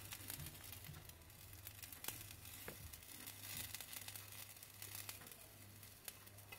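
Faint sizzling with scattered small crackles from an egg paratha frying on low heat on a griddle.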